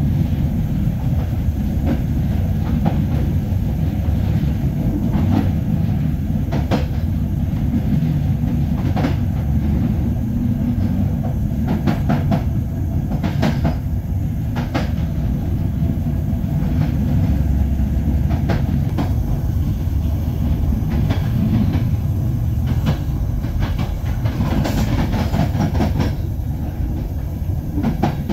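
Passenger train running along the track, heard from aboard: a steady low rumble with sharp wheel clicks at irregular intervals.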